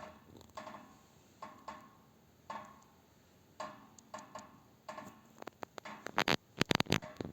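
Knocking in a heating radiator and its pipes: single metallic knocks with a short ring, about one a second, then a quicker, louder flurry of knocks near the end.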